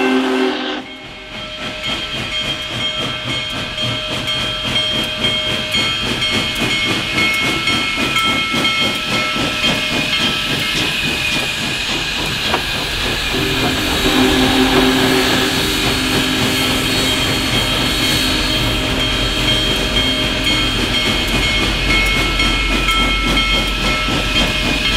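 Union Pacific Big Boy No. 4014 steam locomotive approaching under steam, with a continuous steam hiss. About halfway through its multi-note chime whistle starts a long blast that holds to the end.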